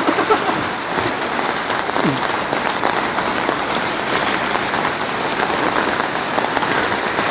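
Steady, dense noise of heavy rain and water in flood.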